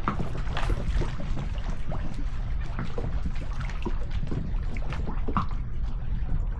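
Water sloshing and dripping around a fishing kayak, in many short irregular splashes over a steady low rumble.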